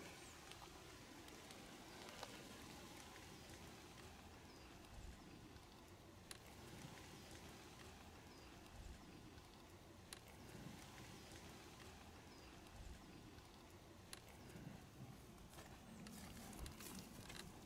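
Near silence: faint outdoor background with a few soft ticks or taps, a small cluster of them near the end.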